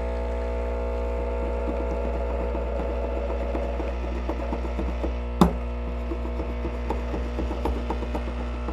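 Rocket Premium Plus espresso machine's vibratory pump humming steadily while it pulls a double espresso shot. One sharp knock about five seconds in.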